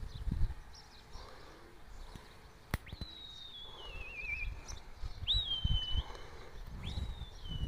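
Long clear whistled calls, likely a bird's, four in a row, each about a second long. The first slides down and wavers at its end, the next two jump up and hold level, and the last falls. There is a sharp click just before the first call and soft low thuds throughout.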